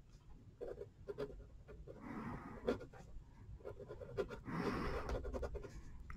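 Faint scratching of a thin Sharpie marker on paper in short strokes, inking over pencil lines.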